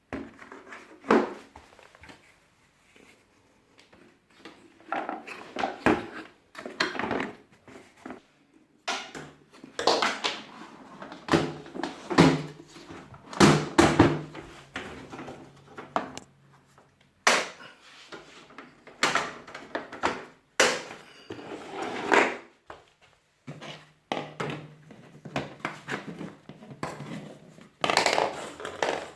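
Irregular knocks, clicks and rustles of hard plastic vacuum-cleaner parts being handled and fitted together, with short pauses between; the vacuum motor is not running.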